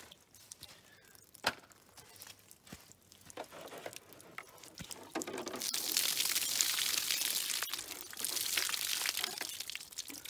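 Water pouring and splashing out of a plastic gallon jug onto a wooden table and the dirt, starting about halfway through and going on until just before the end. Before it, faint crinkles and clicks of the plastic jug being handled.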